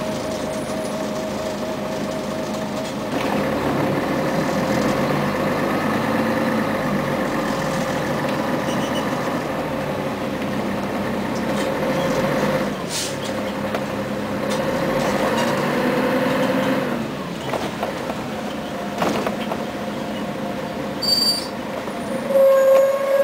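Inside a Scania CN113ALB city bus: the engine and transmission whine rise as the bus pulls away in slow traffic, then die back as it slows again. There is a brief air hiss about halfway through. Near the end a loud, steady single-pitched tone starts.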